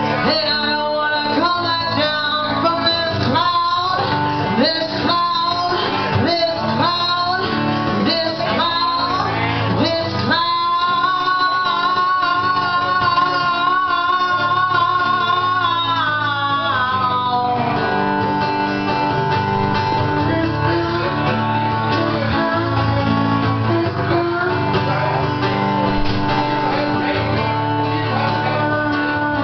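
Live band playing a song, amplified guitar and bass over a steady accompaniment, with a lead line that bends in pitch and a long, wavering held note about midway.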